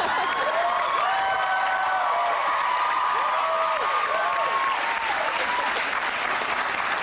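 Studio audience clapping steadily, with several voices whooping and cheering over the applause.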